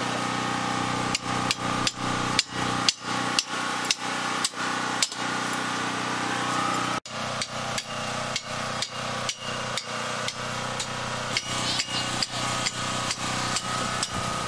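Hammer striking a metal stake, driving it into the ground: a run of sharp blows about two a second, a pause, then a quicker run of lighter blows in the second half. A steady hum runs underneath.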